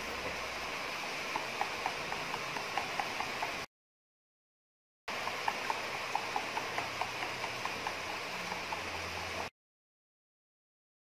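Wooden chopsticks whisking eggs into a wet flour-and-milk batter in a ceramic bowl: quick, even clicks of the sticks against the bowl, about four a second, over a steady hiss. The sound cuts out completely twice.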